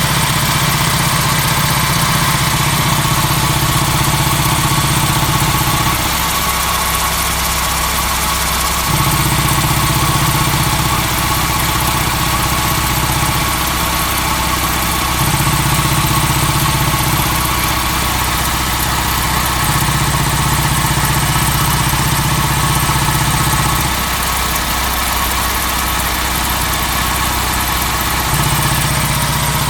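Suzuki K6A three-cylinder engine idling with an abnormal 'poko-poko' popping from the intake pipe; the idle note changes every few seconds. New spark plugs did not cure it; the fault was later traced largely to a dirty idle speed control valve and distributor contact points.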